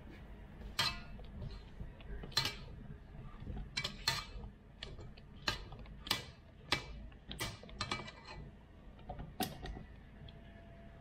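Silicone spatula scraping batter off a stand mixer's wire whisk and stirring in a stainless steel bowl: about a dozen uneven clicks and knocks of the tool against the metal, with the mixer motor switched off.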